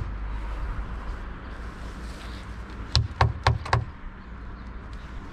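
A rusted lump of metal pulled from the river is knocked against metal in about five quick, sharp taps within a second, to knock the rust off and see what is underneath.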